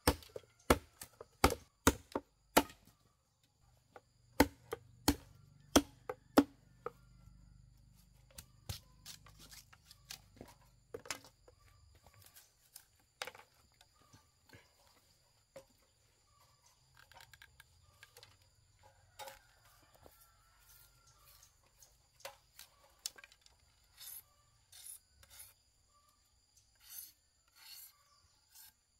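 Palm leaves being chopped with a blade: sharp strokes in quick runs of about two a second, loudest in the first seven seconds, then sparser and lighter.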